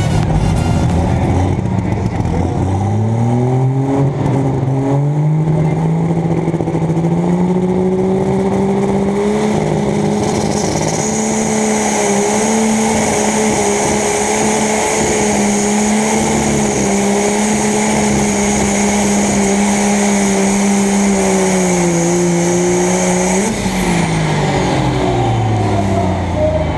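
Light Super Stock pulling tractor's turbocharged diesel engine under full load during a pull, heard from the driver's seat. The revs climb over the first few seconds and then hold steady and high, with a high whine on top from about ten seconds in. Both drop away about 24 seconds in as the throttle comes off.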